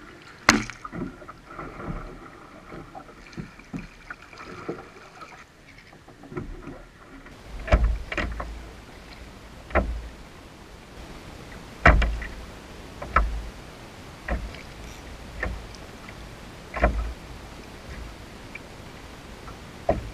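Stealth Profisha 475 fishing kayak being paddled: the paddle blades dip and splash, and water slaps against the plastic hull, in irregular strokes every second or two. The splashes turn heavier and thudding about seven seconds in.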